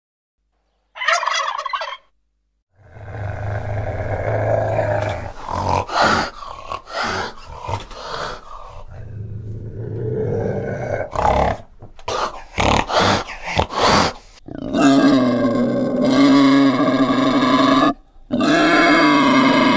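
A sequence of animal calls. A male turkey gobbles once near the start. Then a fishing cat gives low, rough calls broken by sharp bursts for several seconds. Near the end a wild boar makes two long, loud calls with a short gap between them.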